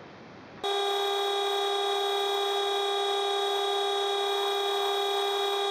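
Small metalworking lathe running at a steady speed: a steady whine with a hiss, starting suddenly about half a second in.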